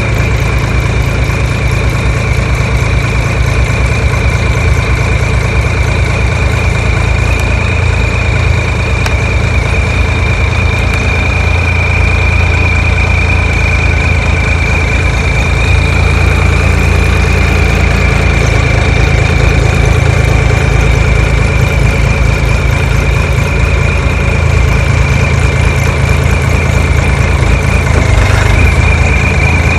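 Mini excavator's diesel engine idling steadily, with a constant high whine running over the low engine rumble.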